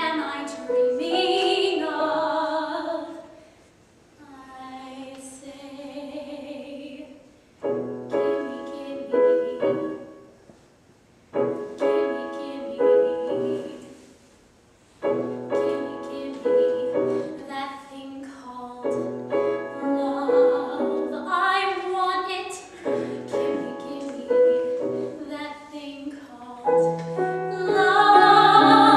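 A woman singing a musical-theatre song in a trained, operatic-leaning voice, accompanied on a grand piano. The voice drops out briefly a few times while piano chords carry on, and the singing is loudest near the end.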